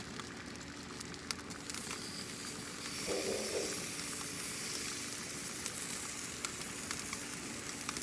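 Parboiled chicken sizzling on a hot gas grill's grate, the sizzle growing louder about three seconds in as more meat goes down, with scattered light clicks.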